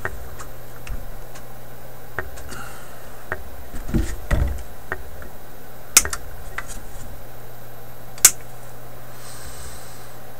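Small clicks and taps of hand tools working among the wiring of a metal radio chassis, with two sharp snips about six and eight seconds in as the leads of an old wax-paper capacitor are cut to remove it. A steady low hum runs underneath.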